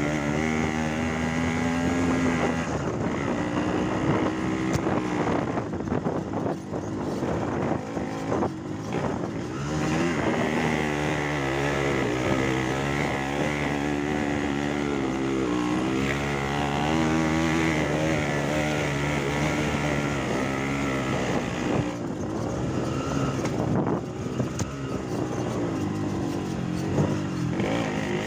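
Motorcycle engine running under way, its pitch rising and falling as the throttle opens and closes.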